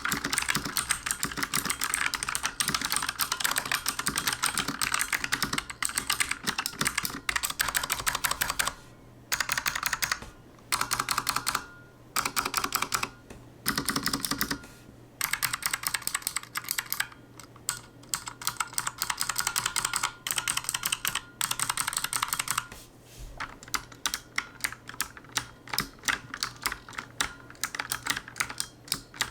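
Typing on a mechanical keyboard with Bloody LK (Light Strike) optical blue clicky switches. Rapid runs of sharp clicks are broken by short pauses, then thin out to more spaced-out single keystrokes in the last several seconds.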